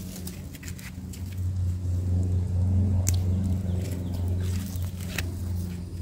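Gloved hands rustling and crackling in mulch and soil while pulling weeds, in short scattered clicks. Under them runs a steady low motor hum that grows louder about a second in.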